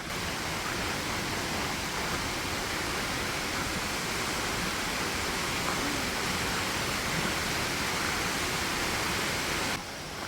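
Steady rush of falling water from Toccoa Falls, an even roar of noise with no pattern to it, cutting off suddenly near the end.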